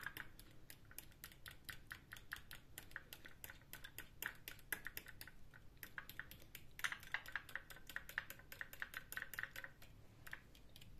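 A fork stirring crushed frozen garlic into olive oil in a small bowl, making rapid light clicks as it taps and scrapes against the bowl. A faint ringing note sounds for a few seconds past the middle.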